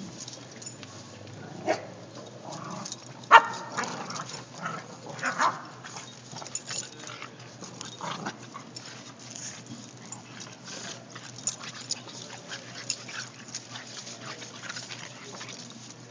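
Boston terrier, English bulldog and bulldog–Shih Tzu mix puppies play-wrestling over a rope toy: short yips and whiny play noises over scuffling and pawing on carpet. A sharp sound about three seconds in is the loudest.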